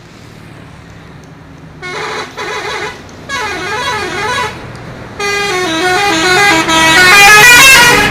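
Indonesian 'telolet' bus horn, a multi-note musical horn, playing its stepping melody in three bursts starting about two seconds in, the last one long and loudest, over a low steady rumble.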